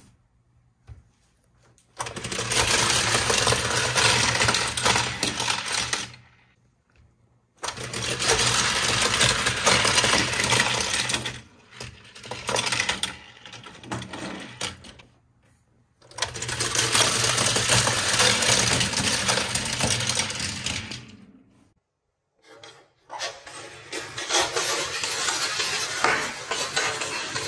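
Small die-cast toy cars rolling and rattling down the plastic spiral ramps of a toy race-track tower, in four runs of several seconds each, with short knocks of handling between them.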